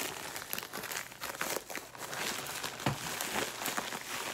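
Packaging crinkling and rustling as it is handled and unwrapped by hand, in a run of irregular crackles.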